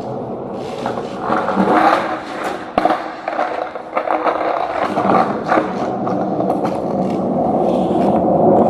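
Skateboard rolling, its wheels rumbling and scraping steadily, with a sharp clack of the board about three seconds in and a few lighter knocks.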